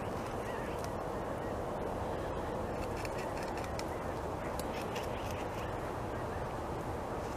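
A North American beaver gnawing on a tree branch: a steady crunching of teeth on wood, full of small sharp clicks.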